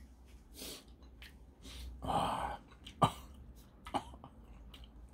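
A man coughing and clearing his throat while eating ramen with a heavy dose of chili powder: a breathy hacking burst about two seconds in, then a sharp cough, then a smaller one, a reaction to the chili heat.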